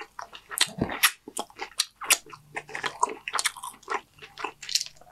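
Close-miked chewing of crunchy Dorito nachos: an irregular run of sharp crunches and wet mouth sounds.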